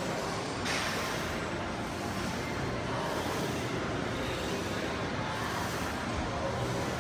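Steady background din of a large gym, an even noise with no clear tone, with a short louder rush a little under a second in.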